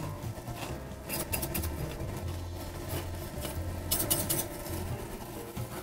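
Hand-turned salt and pepper grinders cranked over a frying pan: two short bursts of rapid gritty clicks, about a second in and again about four seconds in, with shallots and garlic sizzling quietly in butter underneath.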